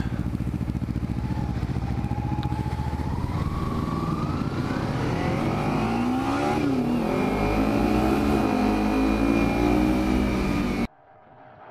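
Kawasaki Ninja motorcycle engine running while riding, its pitch rising gradually over a few seconds as the bike accelerates, over a steady rush of noise. The engine sound cuts off suddenly near the end.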